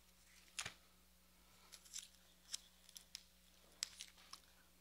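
Faint rustling of thin Bible pages being turned: a handful of short, crisp rustles spread a second or so apart over near silence.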